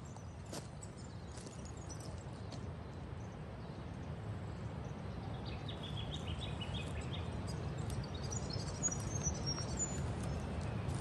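Outdoor riverside ambience: a low, steady wind rumble, with a run of short, high bird chirps from about halfway through that climb higher near the end. A light crunch of a step on gravel comes just at the start.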